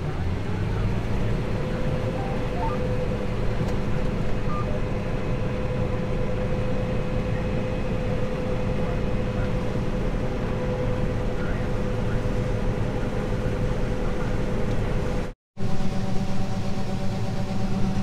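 John Deere combine harvester running steadily while cutting soybeans, heard from inside the cab: a constant machine hum with a steady whine. After a brief dropout near the end the tone changes as the unloading auger runs, pouring beans into the grain trailer.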